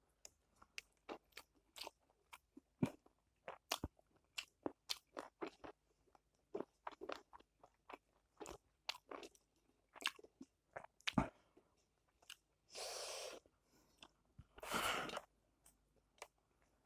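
Close-miked eating sounds: crunchy chewing and wet mouth clicks from eating spicy dried buffalo meat (sukuti) with rice, in many short, irregular clicks. Near the end come two longer, noisier sounds of about a second each.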